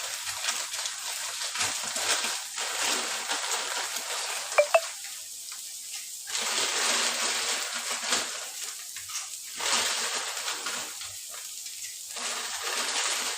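Food cooking in a pot or pan: a hissing, bubbling noise that swells and fades several times, with two sharp clinks about four and a half seconds in.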